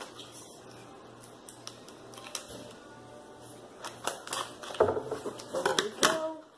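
Scissors snipping through a hard plastic blister pack, the stiff plastic crackling. Small clicks at first, then about four seconds in a louder run of cuts and crackling that stops suddenly just before the end.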